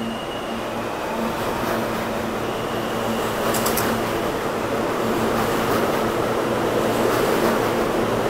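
New York City subway train of R160-series cars running in the station, its rumble and wheel noise growing steadily louder, with a steady hum beneath. A few sharp high-pitched clicks come about three and a half seconds in.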